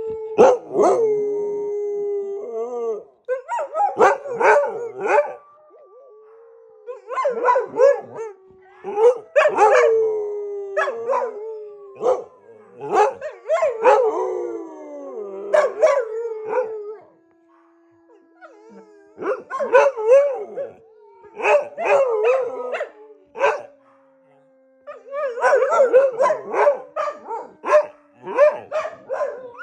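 Dogs howling together: long held howls under bouts of wavering, broken cries a few seconds long, with short lulls between bouts.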